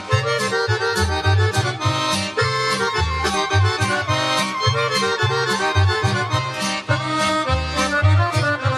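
Serbian folk dance music led by accordion, with a pulsing bass line under a fast, steady beat.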